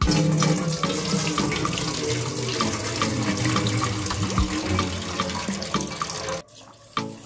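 Water running from a kitchen tap, a steady rush that starts abruptly and cuts off about six seconds in.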